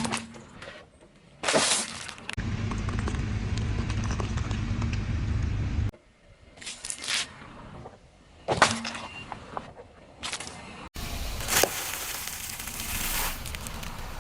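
A car rolling slowly over objects and crushing them: a low rumble from the car and tyres, with sharp cracks and crunches as things break under the wheels, in several short clips joined together.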